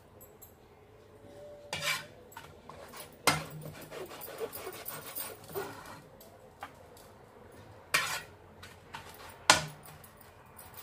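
Metal spatula knocking and scraping against a nonstick frying pan as burger bun halves are moved and pressed in the greased pan, with a few sharp knocks among quieter scrapes.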